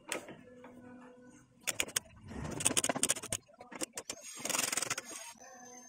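Ratchet socket wrench with a 12 mm socket clicking as it runs down the nuts on a car's upper strut mount: a run of rapid metallic clicks about two seconds in, a few single clicks, and another quick run near the end.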